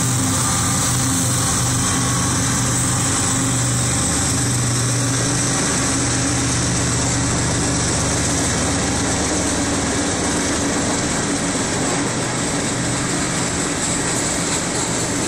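Freight train passing a grade crossing: the trailing Union Pacific diesel locomotive's engine drone, which fades after about five seconds as freight cars follow, rolling by with steady wheel-on-rail noise.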